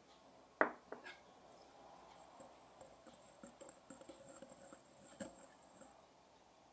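A sharp knock on a glass mixing bowl about half a second in, then a utensil stirring dry flour in the bowl, with light, irregular ticks and scrapes against the glass.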